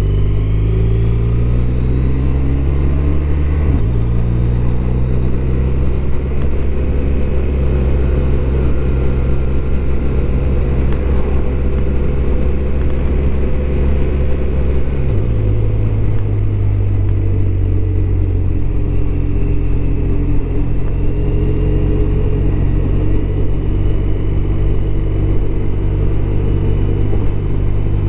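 BMW R1200RT boxer-twin engine under way, accelerating with a rising note that drops about four seconds in as it changes up a gear. The note changes again around fifteen seconds in, then holds steady at cruising speed.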